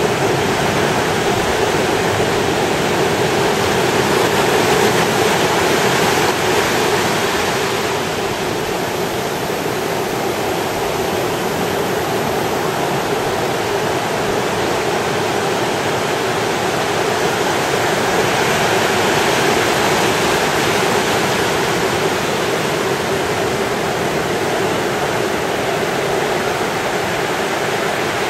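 Ocean surf washing onto a beach: a continuous rush of water that swells slightly a few times.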